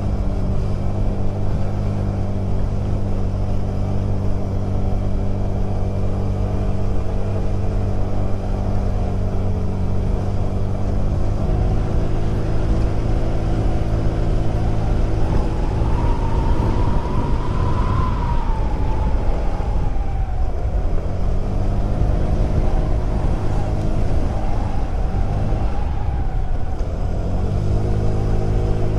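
Honda Click 125 scooter's single-cylinder four-stroke engine running under way. Its pitch holds steady at first, shifts about a third of the way in, and then a whine rises and falls again around the middle before settling.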